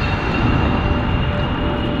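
Boeing C-17A Globemaster III's four Pratt & Whitney F117 turbofan engines at high power during a steep climb: a loud, steady jet rumble with a thin, steady high whine on top.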